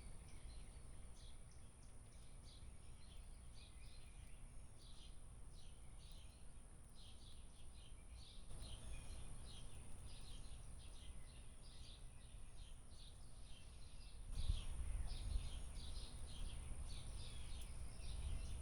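Birds chirping steadily, many short calls overlapping, over a low rumble that grows louder about fourteen seconds in.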